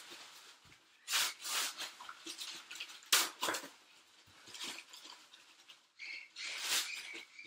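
Wrapping paper and gift bags crinkling and tearing in a few short bursts, with quieter gaps between.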